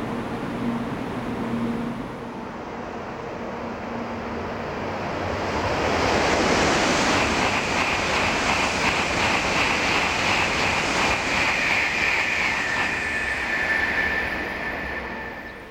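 N700-series Shinkansen passing through a station at high speed: a rush of noise that builds, holds for about eight seconds and then quickly fades. A high tone runs through it and drops in pitch near the end.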